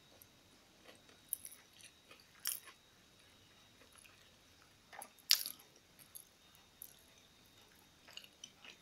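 A person chewing food: scattered soft mouth clicks and crunches, the loudest a little after five seconds in.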